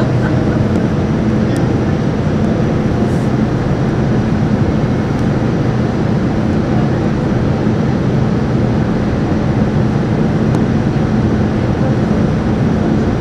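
Boeing 787-9 cabin noise heard from a window seat beside the engine on approach: a steady rush of engine and airflow noise with a constant low hum.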